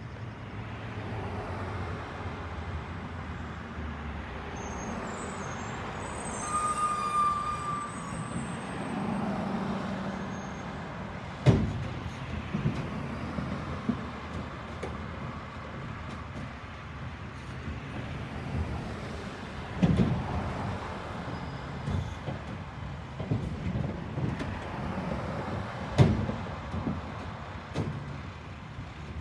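Mack LR Heil Curotto Can garbage truck running as it creeps along the road, its engine a steady low rumble. A brief squeal comes about seven seconds in, and three sharp loud bangs come a few seconds apart in the second half.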